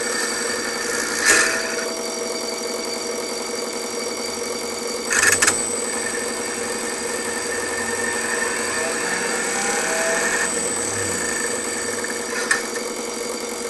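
Steady electric humming and whirring from a turbojet test rig's electric oil pump and its motor controller's cooling fan, with a few short clicks.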